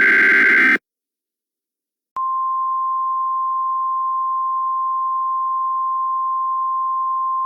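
Emergency alert signalling: the end of a harsh, buzzy digital data burst of the kind that opens an EAS alert header, then about a second and a half of silence, then a single steady tone near 1 kHz, the 1050 Hz alert tone, held for about five seconds and cut off sharply.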